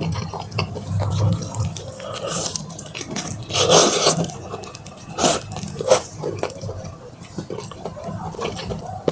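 Close-up eating sounds of Korean fried chicken drumsticks being bitten and chewed: irregular wet chewing and clicking, with a few louder bites around the middle.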